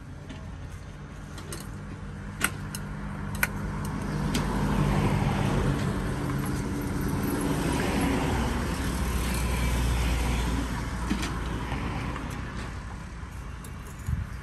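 A motor vehicle passing by, its engine rumble swelling for several seconds and then fading away. Two sharp knocks sound early on, before the vehicle comes near.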